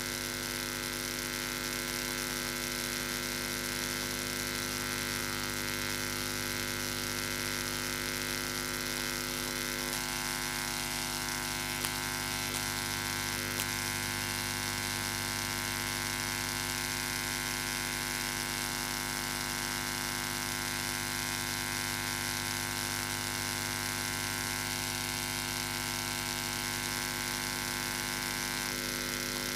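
Steady electronic drone of several held tones at an even level. Some of the middle tones shift about ten seconds in and again near the end.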